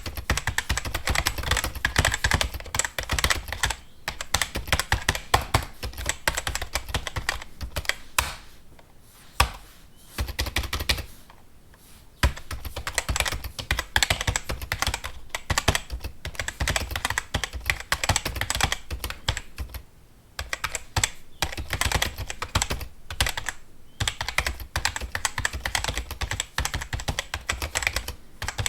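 Fast typing on a computer keyboard: a dense run of rapid keystrokes, broken by a few brief pauses, the longest a couple of seconds near the middle.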